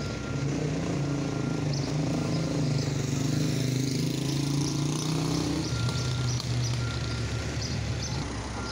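A large vehicle's engine running in the street, its pitch rising a little and then dropping away about five and a half seconds in, with a faint reversing alarm beeping on and off.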